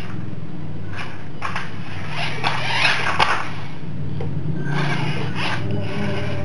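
Small electric motor and gears of a 1/32-scale Mitsuwa RC monster truck whirring in bursts as the throttle is worked, over a steady low hum, with two sharp clicks about three seconds in.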